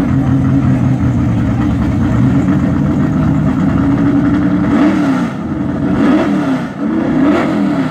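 Drag-racing car engines running loudly at idle on the starting line, then revved up and down in quick blips, about three times, from about five seconds in.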